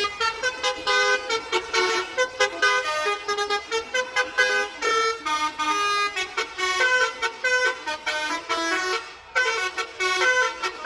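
Bus 'telolet' horn, a multi-tone air horn, playing a quick rhythmic tune of short honked notes at changing pitches, with a brief break about nine seconds in.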